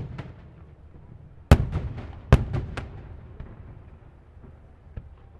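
Aerial fireworks shells bursting: a loud bang about one and a half seconds in, then a quick run of three more under a second later, each followed by a low rumbling echo. A fainter pop near the end.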